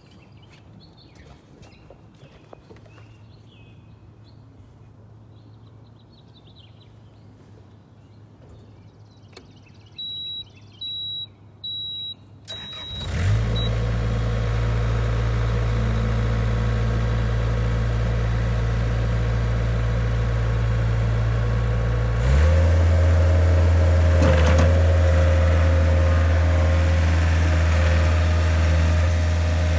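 Faint clicks and knocks, then a few short high warning beeps from the Cat 257 skid steer at key-on, after which its diesel engine starts, catches and idles steadily. About three-quarters of the way through the engine is throttled up and runs steadily at higher speed.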